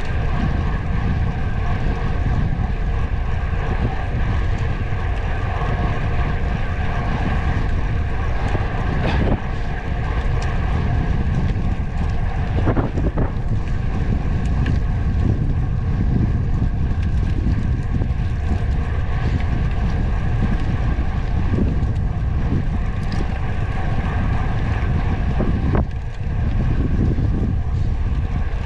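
Wind buffeting the microphone during a ride: a steady, rumbling rush of noise with no breaks.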